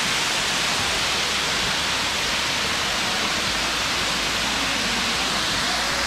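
Waterfall cascading over rock ledges into a shallow pool: a steady, unbroken rush of falling water.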